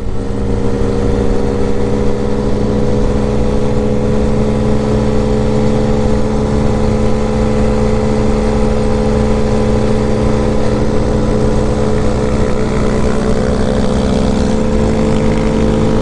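The 125cc single-cylinder engine of a Hellcat Raptor Honda Grom clone running under load at steady revs, with wind rushing over the microphone. Near the end the engine note changes, as at a gear shift or throttle change.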